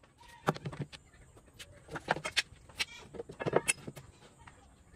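Knocks and clatter of metal pipes and a power tool being handled and set down on a wooden workbench, in several quick groups, some knocks with a short ring.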